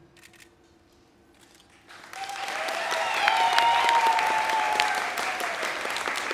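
Audience applause and cheering begin about two seconds in, after a near-quiet pause, with a long held call rising above the clapping.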